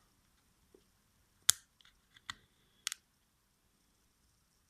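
Small sharp clicks and taps of phone parts and tools being handled during the repair: one loud click about one and a half seconds in, then several lighter ones.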